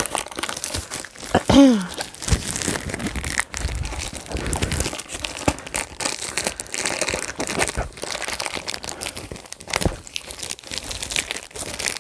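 Plastic packaging of a diamond painting kit crinkling and rustling as it is handled and unwrapped, with many small clicks. A short falling tone about a second and a half in is the loudest moment.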